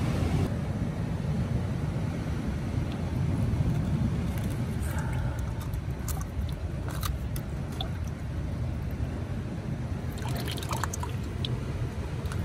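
Steady low rumble of wind and surf on the microphone, with water dripping and trickling in the tide pool. Scattered small clicks and scrapes of pliers prying purple sea urchins from the rocks come a few seconds in and again about ten seconds in.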